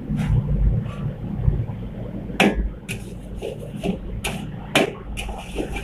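Metal ladle clanking and scraping against a steel wok as fried rice is stir-fried, a series of sharp strikes starting about two seconds in, over a steady low rumble.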